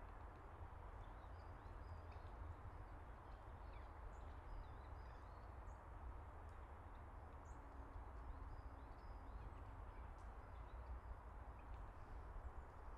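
Faint outdoor ambience: small birds chirping here and there over a steady low rumble and hiss.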